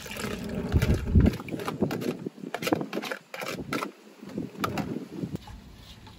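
Irregular clinks and knocks of a cooking utensil against a pot of simmering palm-sugar syrup, with a low rumble in the first second; the knocks thin out near the end.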